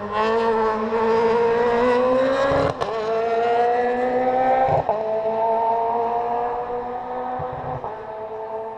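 Rally car engine off to one side, held at high revs in one gear with its note climbing slowly, broken briefly by a sharp crack about three seconds in and again near five. It then holds a steadier pitch and fades slightly toward the end.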